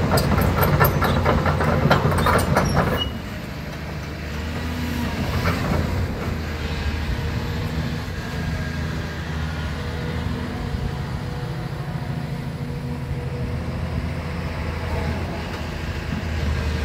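Hyundai Robex 220LC-9A crawler excavator's diesel engine running steadily, with loud metallic clattering for about the first three seconds. After that the engine runs on more quietly while the upper structure swings round.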